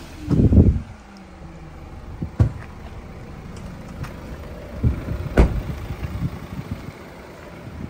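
Volvo XC90 car doors being worked: a heavy dull thud about half a second in, as of a door shutting, then a sharp click a couple of seconds later and a few knocks around five seconds in as the front door is handled.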